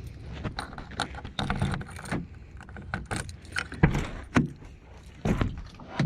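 A bunch of keys jangling, with irregular clicks and knocks as they are handled, a few louder knocks around the middle.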